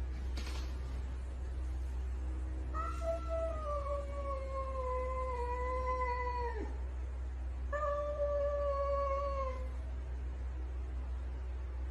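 A cat yowling: two long drawn-out calls. The first lasts about four seconds and sinks slowly in pitch; the second is shorter and steadier. A steady low hum runs underneath.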